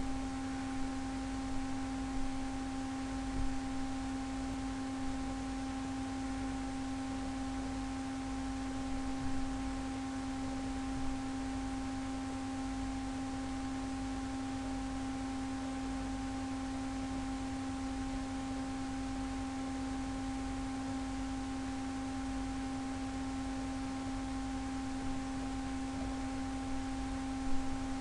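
A steady, unchanging hum of one low pitch with fainter higher tones above it, over a faint hiss.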